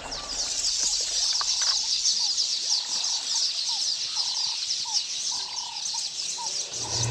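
A dense chorus of bird chirps: many quick, high, downward-sliding notes, with a few short, lower calls mixed in.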